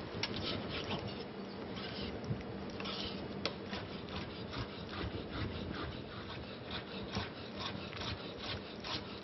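Knife cutting a raw llampuga (mahi-mahi) fillet into very fine pieces on a cutting board: a run of irregular taps and scrapes, a few a second.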